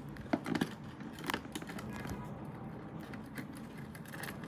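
Light clicks and ticks of small metal parts being handled while a CPU anti-bend contact frame is fitted onto the motherboard socket. A few sharper clicks come in the first second and a half, then fainter ticks.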